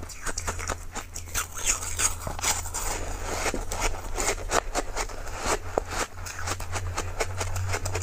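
Close-miked crunching and crackling of chunks of frozen Tartary buckwheat ice being bitten and chewed: a dense run of sharp crackles, with a steady low hum underneath.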